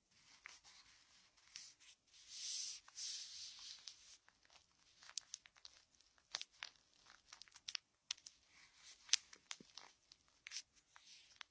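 Close-up ear-cleaning sounds: fingers rubbing and pressing at an ear, giving crackling and scratchy rustles with scattered sharp clicks. A louder, longer rub comes about two to four seconds in.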